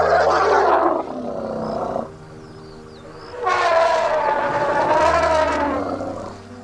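Two loud, drawn-out animal calls over background music: one trails off about two seconds in, and a second, wavering call follows about a second and a half later.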